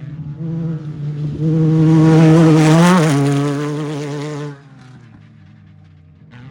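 Off-road race vehicle's engine passing at speed: it swells to loud over about two seconds, drops in pitch as it goes by about three seconds in, then falls away quickly.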